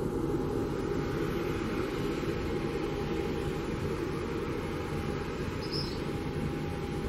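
De Havilland Canada DHC-6 Twin Otter's twin turboprop engines running steadily as it taxis: a low, even drone with a thin steady whine above it.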